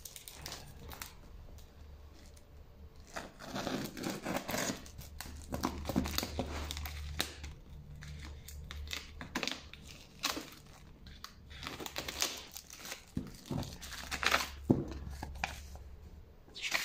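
A knife slitting open a plastic packing-list pouch taped to a cardboard box, with the plastic and papers crinkling and tearing in irregular crackles and rustles as the letter is pulled out.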